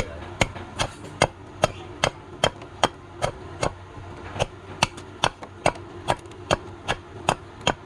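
Steady, rhythmic chopping of palm wood: about two and a half sharp strikes a second, evenly spaced and unbroken.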